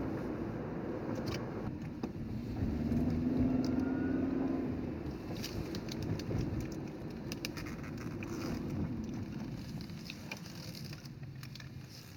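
Steady road and engine noise from inside a moving vehicle, swelling for a few seconds with a low hum about two seconds in.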